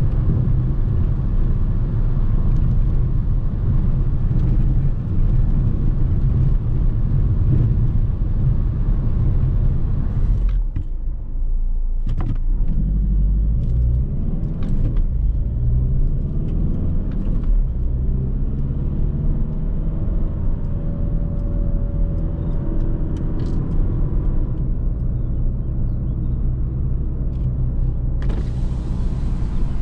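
Škoda Octavia 1.9 TDI four-cylinder turbo-diesel running under way, a steady low rumble mixed with road noise. About ten seconds in the sound dips briefly, then the engine note climbs in pitch, and near the end a brighter hiss comes in.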